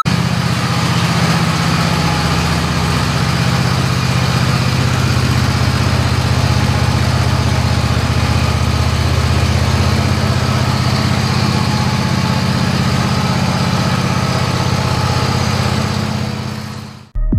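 Two-cylinder Briggs and Stratton 26 HP commercial mower engine running steadily after its burnt valves were repaired. It fades out near the end.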